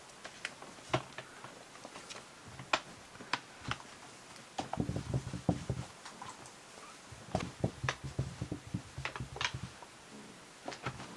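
Kittens scuffling and pouncing on a blanket: scattered light clicks and soft thumps, with bursts of rustling and thudding around the middle and again later on.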